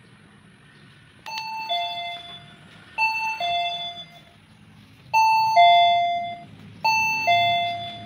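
Sanking BE-053A wireless plug-in doorbell receiver playing its electronic ding-dong chime four times in a row. Each chime is a higher note dropping to a lower one and ringing away, and the third is the loudest.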